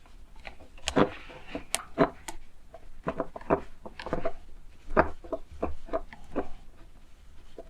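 Irregular small clicks and taps of plastic lamp-fitting parts being handled as a cable clamp is screwed onto a pendant lamp holder, with a few sharper knocks about one and two seconds in.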